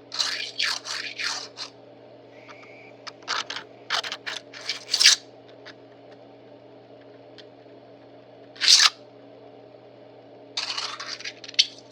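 A 3D-printed plastic fidget toy being worked by hand, giving short plastic scrapes and clicks in several clusters with pauses between them.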